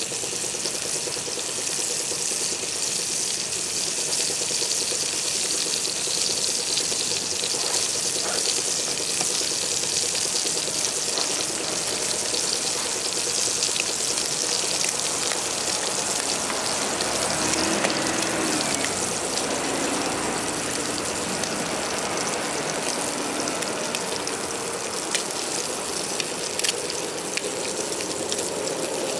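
Thick slices of meat sizzling steadily in a cast-iron skillet on top of a wood-burning tent stove, a continuous high hiss with scattered small pops.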